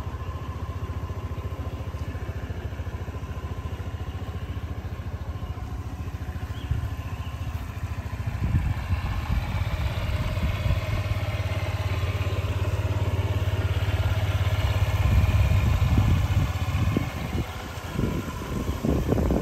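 Honda Ruckus scooter's small single-cylinder four-stroke engine idling steadily, getting louder about halfway through.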